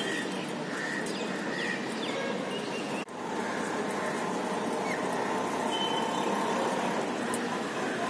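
Steady outdoor city background noise with a few short, faint chirps from rose-ringed parakeets feeding at the ledge. The sound drops out for an instant about three seconds in.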